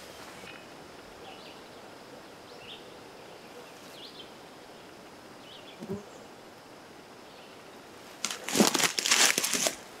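Quiet outdoor ambience with a few faint, short bird chirps. Near the end comes a loud, crackly rustling lasting about a second and a half.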